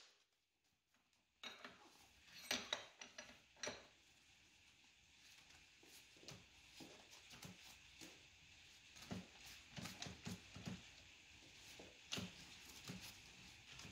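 Faint metallic clinks and taps of hand tools and a drill bit being handled and fitted at a magnetic core drill, with a few sharper clicks a couple of seconds in and lighter ticks later.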